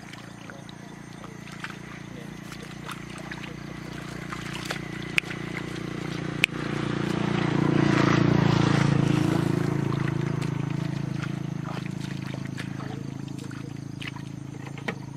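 A motor's steady hum grows louder, peaks about eight seconds in, then slowly fades, like an engine passing by. Two sharp knocks come shortly before the peak.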